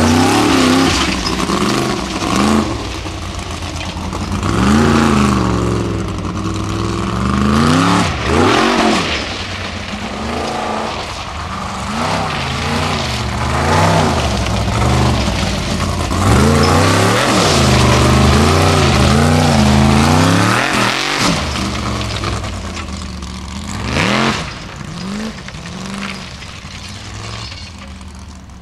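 Unlimited-class formula offroad buggy's engine revving hard. The pitch climbs and drops again and again every second or two as the throttle is worked on loose gravel, easing off near the end.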